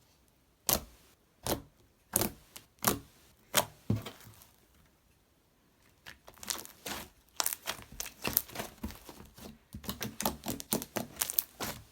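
Freshly made clear-glue glitter slime being squished and stretched by hand, giving sticky pops and crackles: a handful of single pops about once every second or less, a short pause, then a quick run of them from about halfway through.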